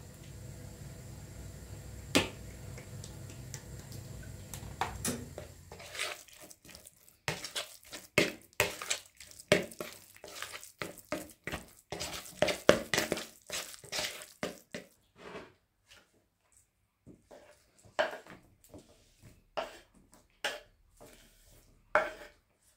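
Bulgur mixed by hand with tomato and pepper paste in a metal bowl: a dense run of small crunching and scraping sounds, following a few seconds of steady low hum with occasional clicks. Near the end, a fork scraping chopped vegetables off a wooden cutting board into the bowl, a few separate knocks and scrapes.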